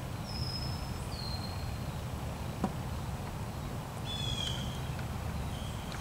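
Woodland birds calling: a few short, clear whistles, two near the start falling slightly in pitch and another about four seconds in, over a steady low rumble. A single sharp click comes about two and a half seconds in.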